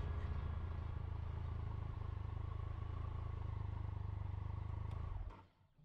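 Triumph Tiger 1200's three-cylinder engine running steadily at low speed, a low rumble that fades out about five seconds in.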